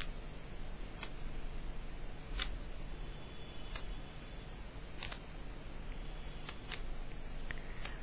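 Quiet room tone with a low steady hum and faint sharp clicks, about one every second and a half.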